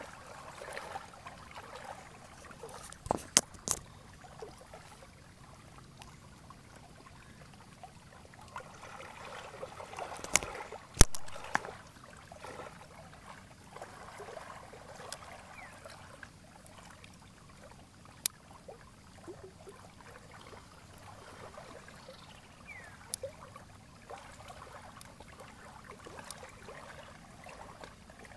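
Lake water lapping and trickling at the shore, with a few sharp clicks and knocks from hands working a small plastic nursery pot and a seedling's root ball, the loudest about eleven seconds in.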